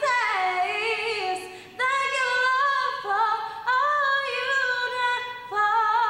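A young female singer singing a cappella, with no accompaniment, holding long notes with vibrato across about four phrases with short breaths between them.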